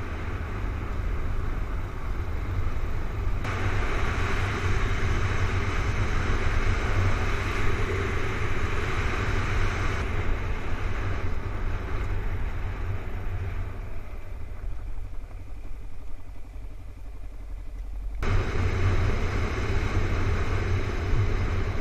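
Motorcycle riding along a gravel dirt road, its engine and road noise heard from a camera mounted on the bike. A steady low rumble runs underneath, and the sound changes abruptly a few times.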